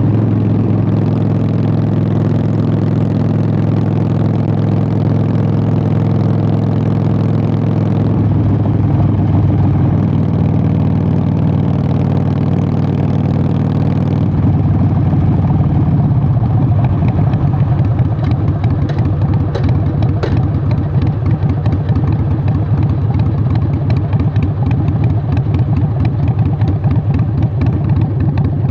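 Harley-Davidson Sportster 883's air-cooled V-twin running through Vance & Hines Short Shots exhaust while riding. The engine note holds steady for several seconds, shifts about eight seconds in, and settles into an uneven pulsing beat through the second half.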